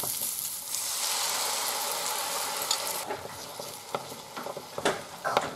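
Onions and diced ham sizzling in a hot frying pan. About a second in, the sizzle grows louder as beaten egg with milk is poured in, then dies down at about three seconds. A few knocks of a wooden spatula stirring against the pan follow.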